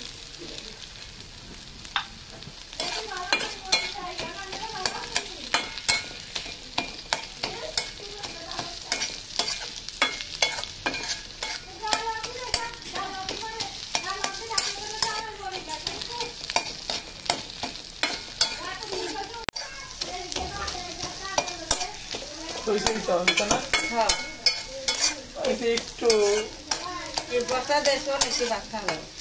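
A spatula scraping and tapping against a karai (a wok-like pan), over and over, as a thick mash of hilsa fish, onion, garlic and green chilli is stirred and pressed into bharta. Under it the mixture sizzles steadily as it fries.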